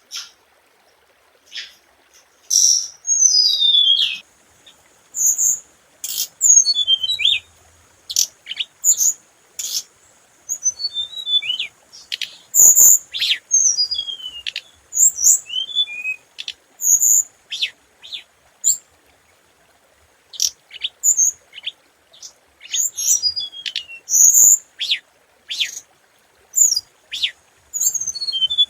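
A hồng hạnh songbird calling and singing in a keeper's lure (mồi) recording: quick, high, sharp chirps and short whistled notes in irregular bursts with brief pauses between them.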